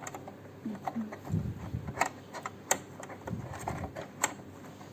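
Small sharp clicks and soft handling knocks as a removed part is fitted and pressed back into place in an Usha Janome sewing machine after cleaning.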